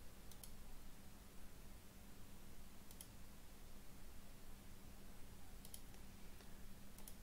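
Faint computer mouse clicks, most in quick pairs, a few seconds apart, over a low steady hum.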